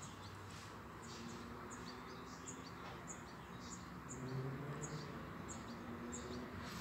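A small bird chirping over and over, short high chirps about three every two seconds, over a steady low background hum that swells slightly partway through.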